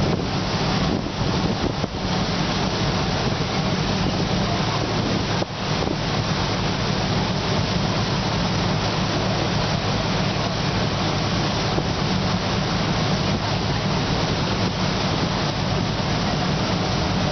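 Boat taxi's engine running steadily at cruising speed, a low even hum, over a constant rush of water along the hull and wind noise on the microphone.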